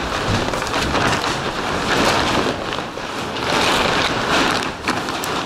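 A tractor-trailer tarpaulin rustling, crackling and flapping as it is handled and spread out, in uneven gusts of noise.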